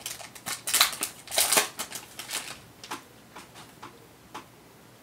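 Foil wrapper of a Panini Contenders Draft Picks trading-card pack crinkling and tearing as it is pulled open by hand. A dense run of loud crackles comes over the first two and a half seconds, then a few softer crackles, dying away after about four seconds.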